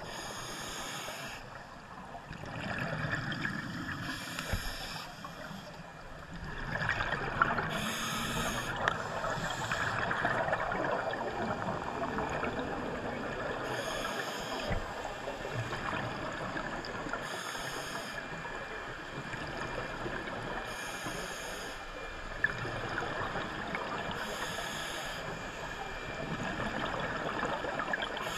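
Scuba diver breathing through a regulator underwater: a short hissing rush of exhaled bubbles every few seconds, over a steady gurgling water noise.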